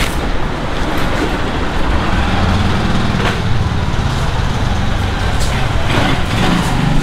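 Steady rumble of street traffic, with a few light knife strokes on a wooden cutting board in the second half.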